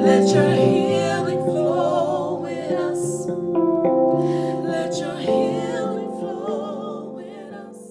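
Live worship music: sustained instrumental chords with soft wordless singing over them, gradually fading out near the end.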